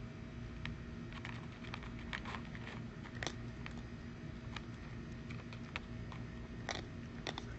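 Cat crunching dry food: scattered soft clicks and crackles, bunched about a second in and again near the end, over a steady low hum.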